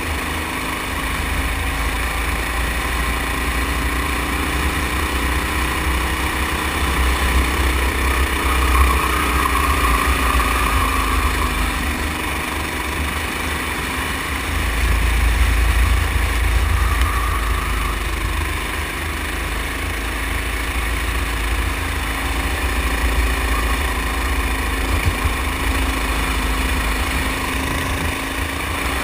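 Go-kart's small gasoline engine running under way, its pitch rising and falling with the throttle through the corners, mixed with heavy wind rumble on the camera microphone.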